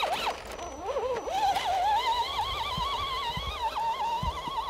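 A dog whining: one long, high whine that wavers up and down in pitch and stops near the end.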